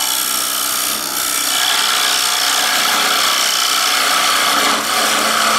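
A 90-degree carbide detailer in an arm-braced hollowing system cutting the inside of a bowl spinning on a wood lathe: a steady scraping hiss of the cutter in the wood, with a steady low hum under it. The cut runs smoothly, with no chatter, even with the tool hanging out over the tool rest.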